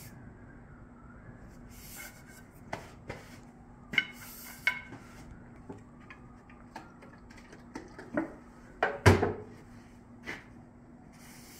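Scattered knocks and clacks of an axe and hand tools being set down and handled on a workbench, with paper towel being torn off and rustled; the loudest knocks come about nine seconds in.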